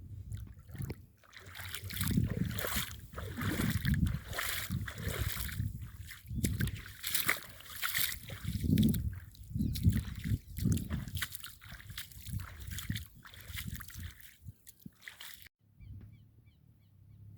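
Footsteps sloshing and splashing through shallow rainwater and mud, at about one step a second. They stop abruptly near the end.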